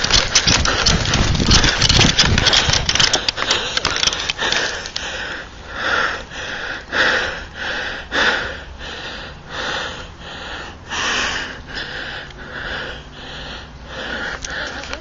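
Rustling and scuffing from the player's movement for the first few seconds, then rapid, heavy breathing close to the microphone, about one and a half breaths a second: the player is panting while holding still in cover.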